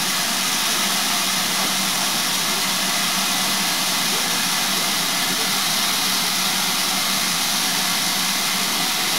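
Steady hiss of escaping steam beside a standing steam-hauled train, even and unbroken throughout.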